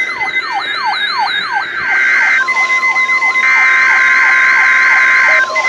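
NOAA Weather Radio SAME header data bursts, a harsh digital screech sounding twice, overlaid with an electronic siren-like alarm sweeping down in pitch about three times a second. A steady alert beep tone comes in about halfway through. The signals are a second weekly test sent straight after the first.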